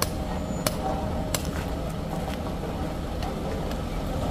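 Hammer blows at a steady pace of about three every two seconds, sharp for the first second and a half, then fainter and more spaced, over the steady low hum of an idling truck engine.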